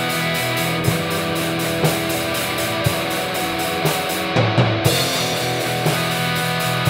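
Metal band playing an instrumental passage: distorted electric guitars and bass over a drum kit, with heavy accents about once a second. The cymbals drop out briefly about four and a half seconds in, under a short drum fill.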